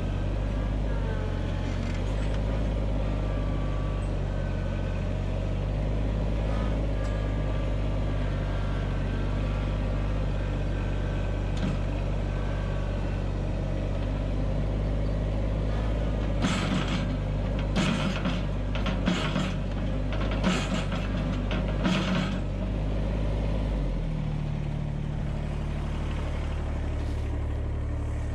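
Compact tractor engine running steadily while the front loader's pallet forks dig into a packed pile of old hay. About halfway through comes a run of about seven short, sharp scraping or creaking noises, and near the end the engine note drops lower.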